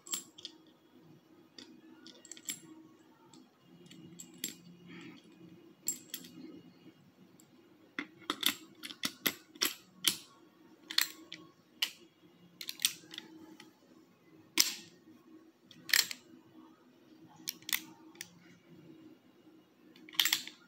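Metallic clicks and taps from a BB revolver being loaded and handled: brass BB shells going into its cylinder, then its mechanism clicking in short clusters, busiest in the second half.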